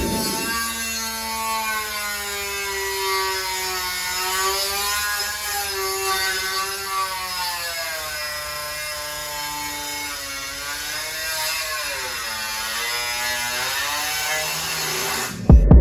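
Angle grinder running steadily, its whine sagging and recovering as it is pressed into the metal, then cutting off just before the end.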